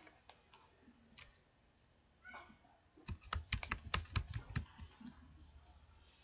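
Typing on a computer keyboard: a few scattered key clicks, then a quick run of keystrokes about three seconds in as a word is typed.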